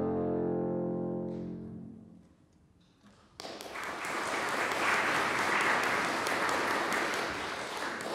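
A final held chord on bassoon, contrabassoon and harpsichord dies away into a moment of silence, then the audience bursts into applause about three and a half seconds in.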